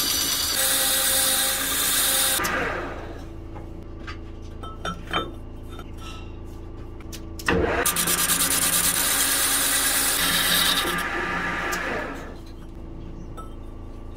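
Metal lathe turning a multi-groove V-belt pulley, with the cutting tool scraping across the spinning pulley in two cuts: one for about the first two seconds, another starting suddenly with a knock about halfway and ending around twelve seconds. Between the cuts the lathe runs more quietly, with a couple of short clicks.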